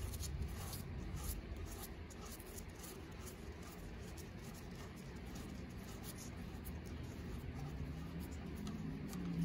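A steel nut being spun off the threaded rear axle of a coaster-brake bicycle hub by a gloved hand. It makes faint, rapid scratchy ticks as it turns on the threads.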